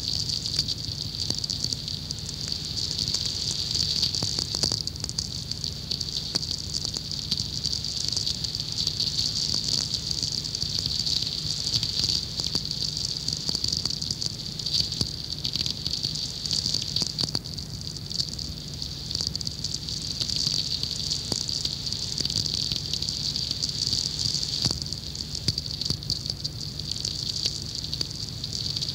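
Sferics, the natural radio pulses from distant lightning made audible through a VLF receiver: a dense, steady crackling with a high hiss and scattered sharper clicks, over a low hum.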